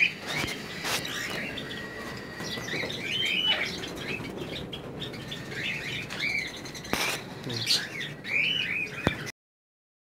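A flock of small aviary birds chirping, with repeated short rising-and-falling calls and a couple of sharp knocks; it cuts off suddenly about nine seconds in.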